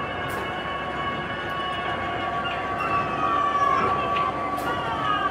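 Designed sci-fi horror drone: a steady high mechanical hum under several held tones, with whines that slide downward in pitch over a rumbling bed, growing slightly louder partway through.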